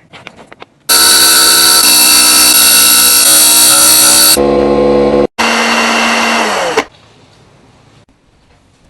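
Small electric motor of a power tool running at high speed with a steady pitched hum, heard in three runs that cut off abruptly; the last run winds down in pitch as it stops. Faint clicks and handling sounds come before and after.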